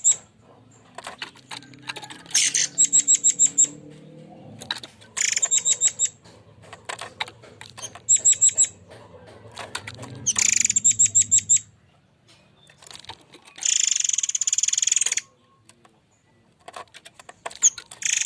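Murai air ('burung air mancur') song in short bursts of rapid-fire, high-pitched repeated notes, each burst a second or so long and recurring every couple of seconds. These are the rough 'tembakan' call series used as a lure for the bird. A harsher buzzing call runs for about a second and a half past the middle.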